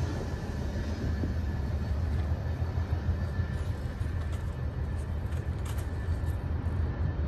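Low, steady rumble of a freight train moving away after passing.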